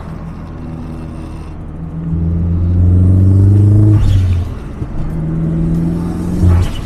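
Mazdaspeed3's turbocharged 2.3-litre four-cylinder engine accelerating: its note climbs in pitch for about two seconds, drops off sharply about four seconds in, then pulls again at a steadier pitch before easing off near the end.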